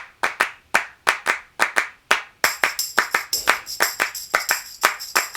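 Rhythmic hand claps opening a music track, joined about halfway through by a high jingling shimmer as the beat quickens.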